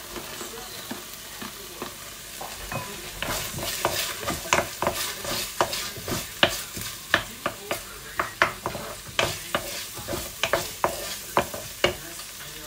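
Onion frying in hot oil in a pan, sizzling steadily while it is stirred, with sharp clicks about three times a second from about three seconds in.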